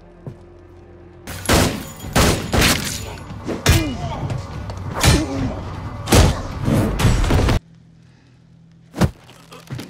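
Film fight-scene soundtrack: a rapid run of heavy thuds, crashes and shattering with shouting over music, cutting off abruptly about three-quarters of the way in, followed by a low hum and one more sharp hit near the end.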